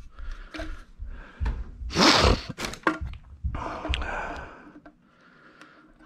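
Handling a plastic furnace condensate trap and its rubber hose coupling: scattered knocks, clicks and rubbing, with one short, loud rushing burst about two seconds in.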